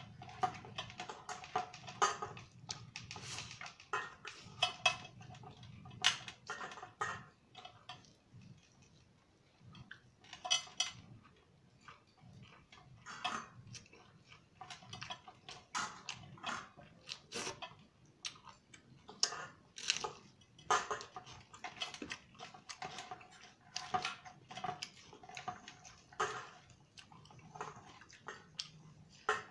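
Eating by hand from stainless steel plates: chewing and mouth sounds, with many short irregular clicks and light clinks of fingers and a bowl on steel.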